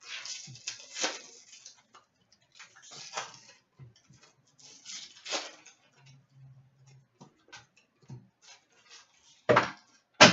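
Rustling and handling of trading card packaging and cards, with several swishing rustles and small clicks, then two sharp knocks near the end.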